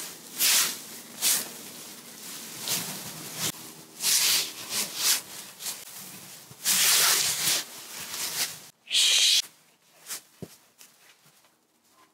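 Dry fallen leaves rustling and crackling in irregular bursts as handfuls are dropped and pressed onto a person lying in a leaf pile, with the loudest bursts about seven and nine seconds in.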